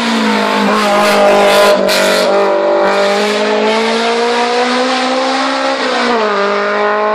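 A race car's engine running hard at high, fairly steady revs as the car takes a bend and climbs away, with a brief rushing hiss about a second and a half in. The engine pitch dips slightly about six seconds in.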